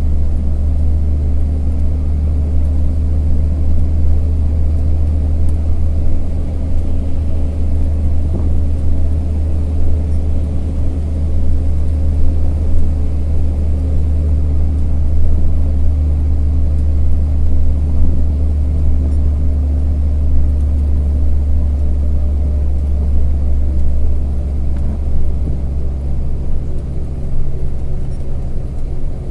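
Truck engine and road noise heard inside the cab while cruising along the highway: a loud, steady low drone, its engine note shifting slightly near the end.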